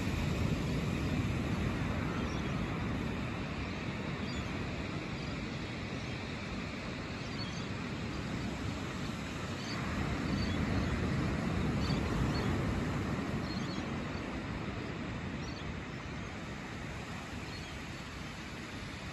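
Low surf breaking and washing up a sandy beach: a steady rushing that swells and eases slowly, louder about ten seconds in.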